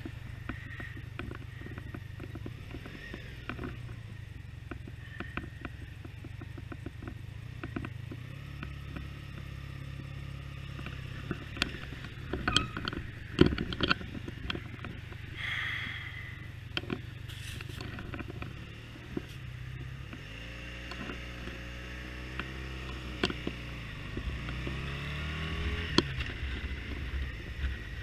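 Motorcycle engine running at low speed, with a cluster of knocks and clatters about halfway. From about two-thirds in, the engine pitch rises again and again as the bike accelerates away.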